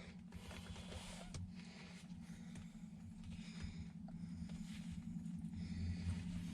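Faint small clicks and plastic rustling of hands working the wiring connector loose under a pickup's gearshift knob, over a steady low hum.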